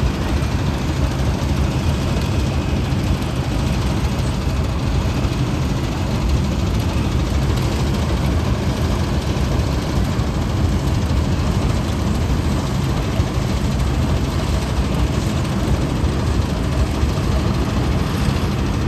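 A Balkar 654 combine harvester's diesel engine running steadily with a low, even drone and no change in speed.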